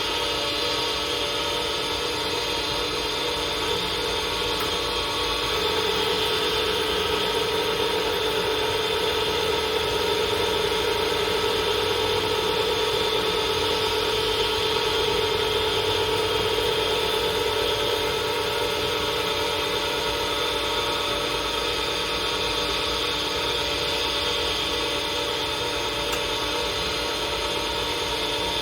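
Lathe running steadily at constant speed, a machine hum with several fixed tones.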